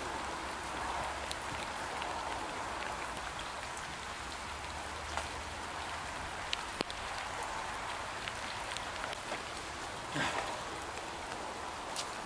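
Steady hiss of light rain with scattered drops ticking. A brief, louder noise about ten seconds in.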